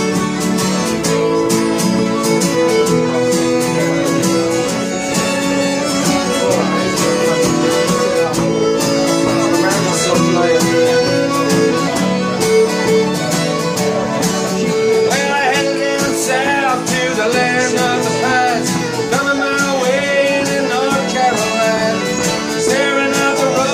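Folk session tune played together on fiddle, mandolin and accordions, with a steady stream of held and quick notes. In the second half, high wavering notes stand out above the ensemble.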